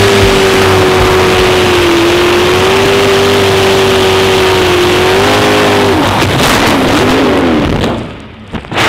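Racing jet boat's engine running hard at a steady high pitch, mixed with rushing wind and water. About five seconds in the pitch steps up briefly, then sags and wavers as the throttle comes off. Near the end the sound drops away sharply, then there is one short loud hit.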